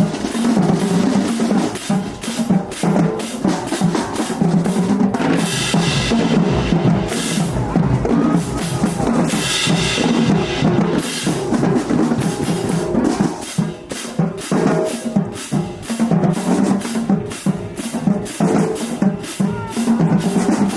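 Marching band drumline playing a cadence: a steady beat of rapid snare and bass drum strikes, with two short stretches of louder, brighter playing near the middle.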